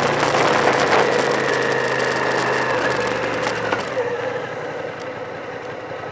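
Car engine and road noise from the moving car, a steady low hum under a broad hiss, getting steadily quieter.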